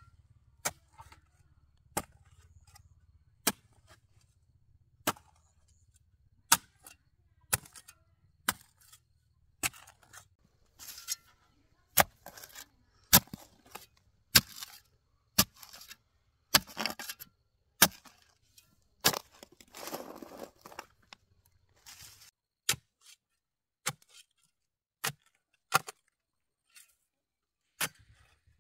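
A hand tool striking again and again in chopping blows, about one a second and unevenly spaced. A few strikes are followed by a short scrape or rustle.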